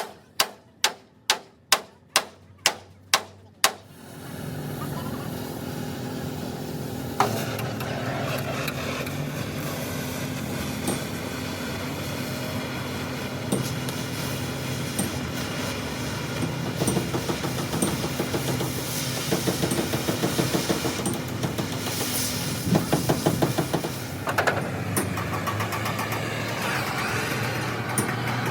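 About ten sharp, evenly spaced knocks in the first four seconds, then a truck engine starts and runs steadily.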